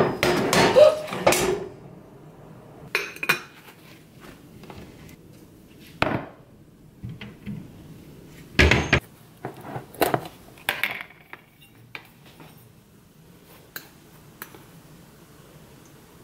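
Metal clinks and knocks as a stovetop moka pot is handled and a can of ground coffee is set down and spooned from. A clatter of handling in the first two seconds, then scattered single knocks, the loudest just past halfway.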